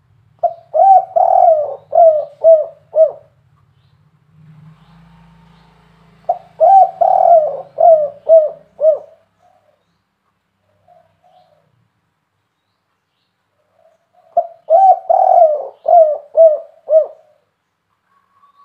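Spotted dove cooing: three bouts of rapid repeated coos, each lasting a few seconds, with pauses of several seconds between them.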